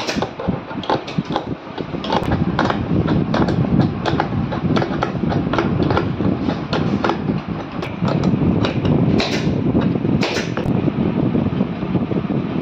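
Irregular metallic clicks and taps of a hand tool working the end fitting of a chair's gas spring and its steel mounting bracket, over a steady low background rumble.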